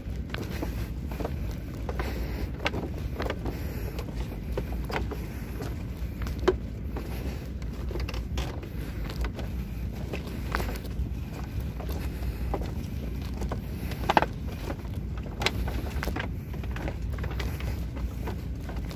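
Footsteps on a bamboo-slat walkway, with irregular clicks and creaks from the bamboo and a couple of sharper knocks, over a steady low rumble of wind on the microphone.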